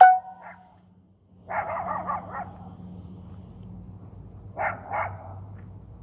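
A dog barking: a quick run of barks about a second and a half in, then two short barks near the end. A faint steady hum runs underneath, and a few electronic beeps are dying away at the very start.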